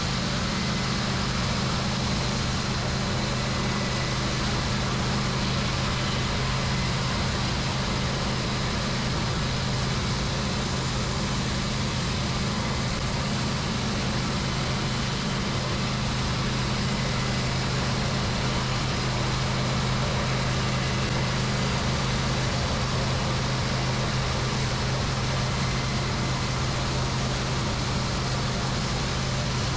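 Small engine of a homemade band sawmill running steadily at an even speed.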